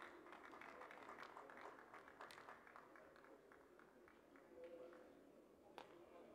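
Faint crowd ambience from a beach volleyball arena between rallies: a low murmur of spectators with a few scattered sharp claps or taps.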